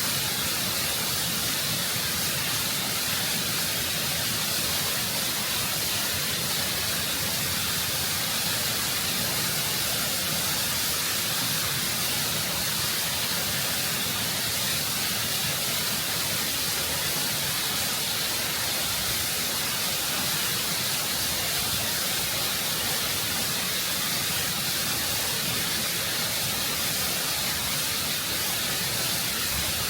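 Waterfall water rushing and cascading over rock, recorded close up: a steady, full hiss with a low rumble underneath, unchanging throughout.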